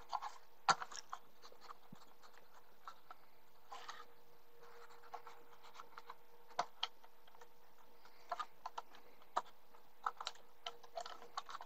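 Light, scattered clicks and taps of small laser-cut plywood parts being handled and set down on a cutting mat.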